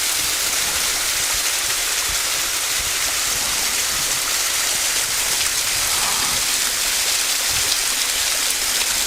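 Steady, even hiss of water, with no clear breaks or single drops standing out.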